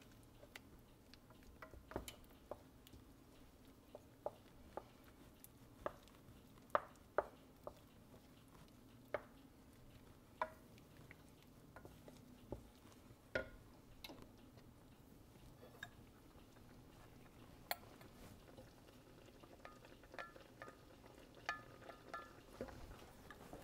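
Wooden spatula stirring and scraping the bottom of a stainless steel skillet of shrimp simmering in stock: quiet, scattered taps and knocks over a faint steady hum.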